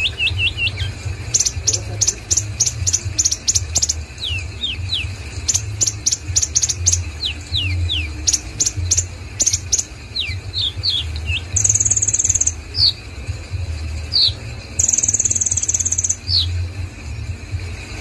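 Male black sunbird (kolibri ninja) singing: rapid runs of very high ticking notes mixed with short falling chirps, and two longer high buzzy trills about two-thirds of the way through. A steady low hum runs underneath.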